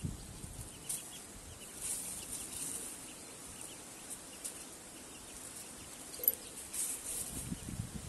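Domestic hen with her young chicks foraging in dry leaf litter: faint scattered clucks and peeps with light rustling, and one sharp click a little after six seconds in.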